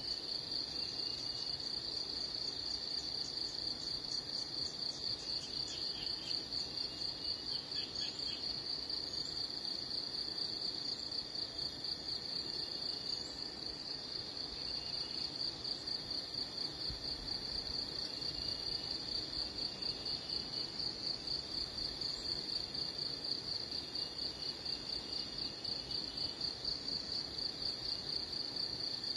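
Insects trilling: a steady, high-pitched pulsing buzz, about three pulses a second, running without a break.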